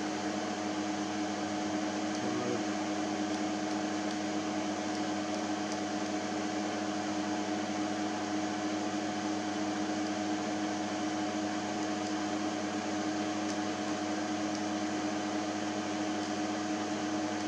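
Steady whirr of a running PDP-11/04 minicomputer's cooling fans, an even noise with a constant hum tone through it.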